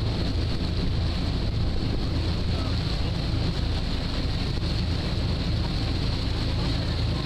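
Ferry's engine running with a steady low rumble under the rushing wash of its propeller wake, with wind buffeting the microphone.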